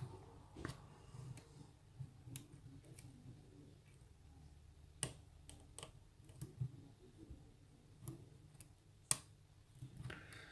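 Faint, scattered metallic clicks and ticks of a hook pick and tension wrench working the pins of a rim cylinder lock, with two sharper clicks about five seconds in and near nine seconds.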